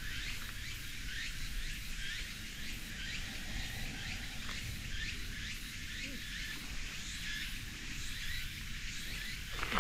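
Outdoor ambience: a steady background of chirping insects and birds, over a faint low rumble.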